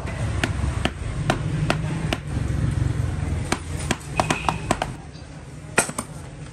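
Hammer blows, evenly spaced at about two a second at first, then a quicker run of lighter knocks and two last strikes, over a steady low hum.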